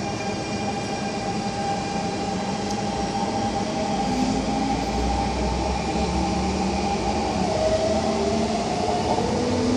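MTR Tung Chung line A-Train heard from inside the car as it gathers speed. The traction motors whine in steady tones that shift in pitch about three-quarters of the way through, over a low rumble of the wheels that grows louder.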